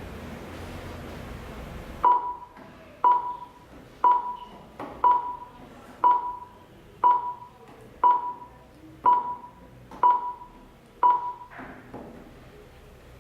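Ten short electronic beeps, evenly spaced about one a second, each a single mid-pitched tone that starts sharply and fades quickly.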